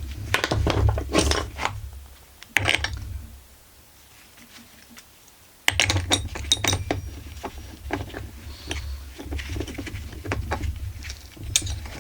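Small metal chainsaw parts and hand tools clinking and clattering as they are handled, in quick irregular knocks, with a quiet pause of about two seconds in the middle.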